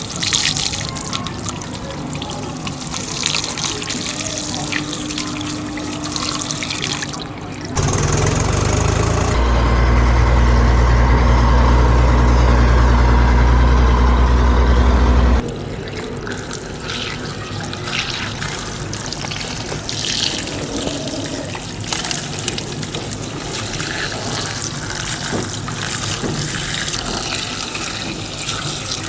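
Water running and splashing as a model tractor is washed. From about 8 to 15 seconds in, a louder steady low hum takes over and then cuts off suddenly.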